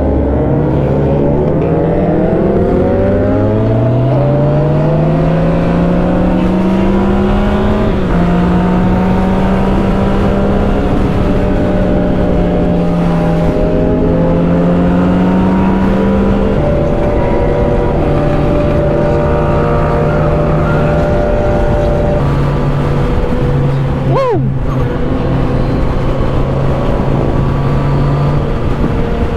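Motorcycle engine running under way, its pitch climbing as it accelerates and then stepping between steady speeds as it is shifted and rolled off.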